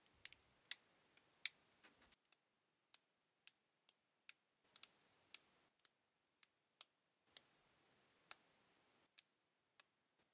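Plastic LEGO bricks snapping and clicking together as they are pressed onto each other by hand: about two dozen sharp clicks at irregular intervals, some in quick pairs.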